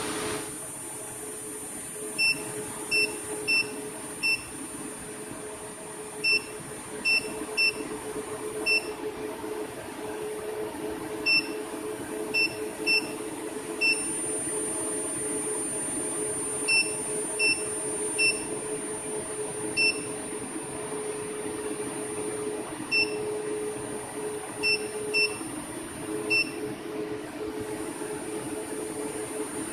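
About twenty short, identical electronic beeps at irregular intervals, often in twos and threes, over a steady electrical hum and a thin high whine from equipment running.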